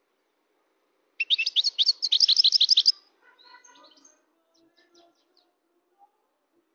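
European goldfinch singing: after about a second of quiet, a loud, fast run of high repeated notes, about ten a second, lasting under two seconds, then softer, lower twittering that trails off.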